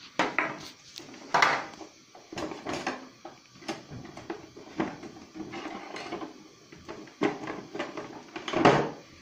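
Irregular knocks and clatter of wooden prosphora seals and dough being handled in a plastic box and set on a metal baking tray, the loudest knock near the end.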